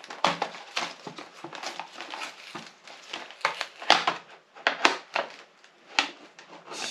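Product packaging being worked open by hand: irregular crinkling with sharp clicks and snaps as the plastic is pulled and bent.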